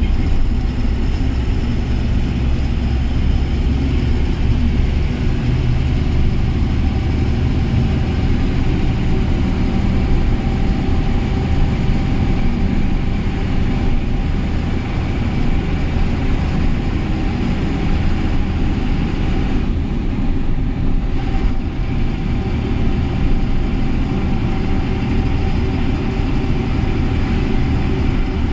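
Truck's diesel engine running steadily while the truck drives on, heard from inside the cab together with road noise; the sound is a loud, even low rumble with a faint steady whine above it.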